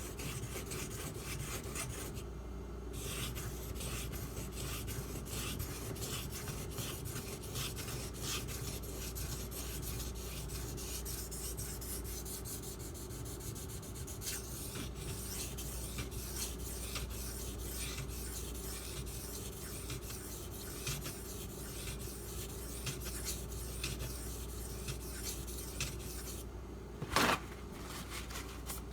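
Knife edge being stroked back and forth on a 6000-grit water stone, a continuous scraping rub, with brief pauses about two seconds in and near the end. One short sharp knock comes just before the end.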